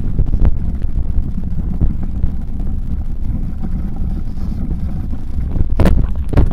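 Wind buffeting the microphone over the rumble of a bicycle rolling along a dirt woodland trail. A couple of sharp knocks near the end as the bike jolts over bumps.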